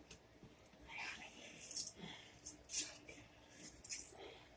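Short, sharp breaths and exhales of a man winded from arm wrestling, four or five of them with gaps between, with faint movement noises.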